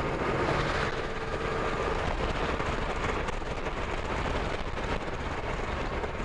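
Yamaha Tracer motorcycle cruising at a steady road speed: a continuous mix of engine and wind noise, steady throughout.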